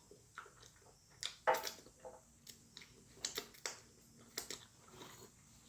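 Close-miked chewing of food: irregular wet smacks and small crunches, about a dozen short clicks spread unevenly, the loudest about a second and a half in.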